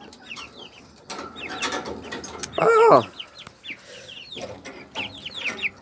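Chickens calling: a steady run of short, high, falling peeps, and one loud wavering call just under three seconds in. A few sharp clicks come from a wire cage door being handled.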